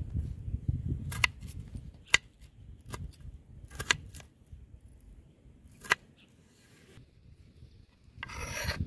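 Kitchen knife cutting a red bell pepper on a wooden cutting board: a few sharp, irregular knocks of the blade on the board, and a brief rustle near the end.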